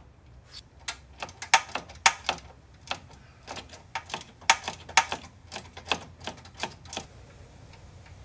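Hand tool clicking on a bolt: a ratchet and socket working the bolt of a Can-Am Spyder's sway bar channel stiffener loose, about twenty sharp metallic clicks in uneven runs that stop about seven seconds in.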